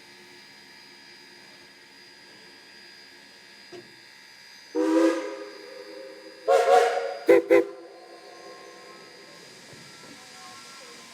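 Steam locomotive whistle blowing two longer blasts followed by two quick short toots, over a low steady background hiss.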